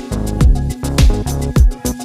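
Background pop music with a steady electronic beat: a deep kick drum about twice a second over bass and chords.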